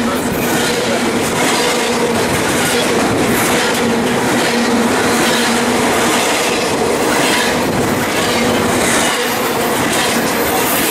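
Double-stack container freight train passing close by: a steady, loud roar of wheels on rail, with repeated clicks as the wheels cross rail joints and a steady low tone underneath.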